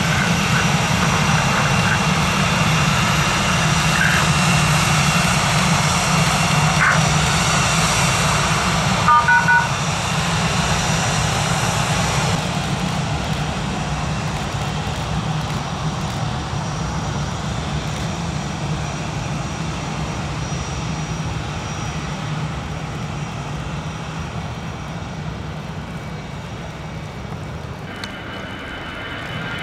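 Jet airliner engines running, a steady dense rumble that slowly fades away. A short two-tone beep sounds about nine seconds in.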